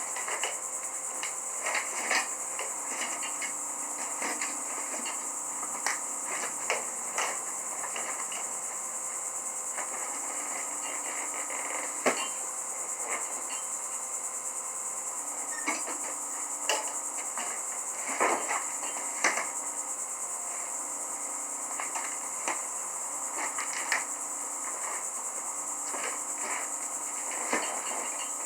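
Hand tire tools knocking and clanking against a steel wheel rim while breaking an old tire's bead loose, in irregular strikes spread across the whole stretch. A steady high-pitched hiss runs underneath.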